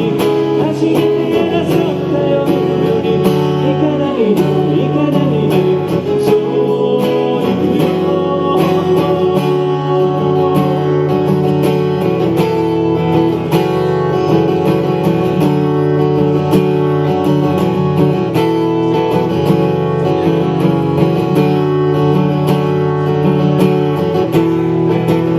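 Acoustic guitar strummed and picked as a song accompaniment, with a singer's voice over the first part before the guitar plays on alone.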